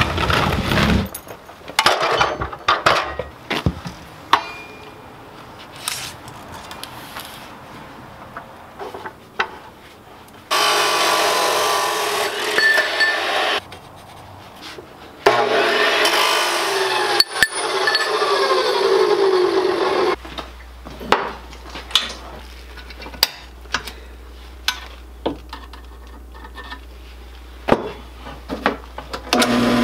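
Abrasive metal-cutting chop saw cutting through steel stock twice, each cut a few seconds long. The blade winds down with a falling whine after the second cut. Around the cuts come clanks and taps of steel being handled, and in the last third a low steady hum of a drill press motor running.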